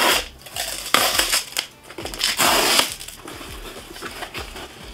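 Cardboard shipping box being torn open by hand: several loud ripping tears in the first three seconds, the last one the longest, then quieter handling of the box.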